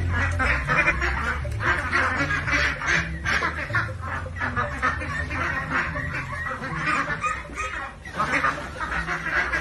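A large flock of white domestic ducks quacking continuously, many calls overlapping into a steady din.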